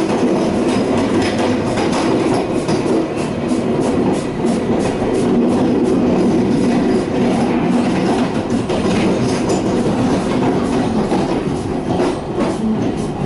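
Passenger train running along the track: a steady rumble with clicking from the wheels over rail joints, heaviest a few seconds in and again near the end.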